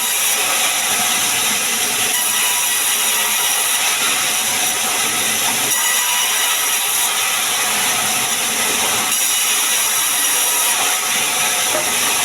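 Sawmill saw running steadily while cutting sengon wood into beams: a loud, even, high-pitched noise with no pauses.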